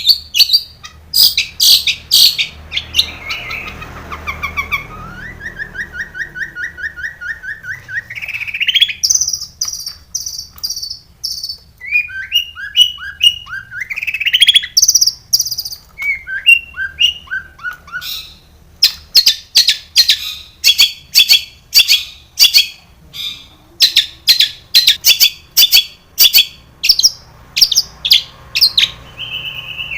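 Long-tailed shrike (cendet) in full song, a varied medley of mimicked phrases: sharp repeated chirps, buzzy trills and rising sweeps. In the second half it goes into a long run of quick sharp notes, about two a second.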